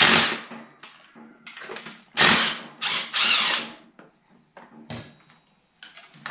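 Metal clatter of the pit bike being set down on its stand: a sharp clank, then three short rattling, scraping bursts about two seconds later.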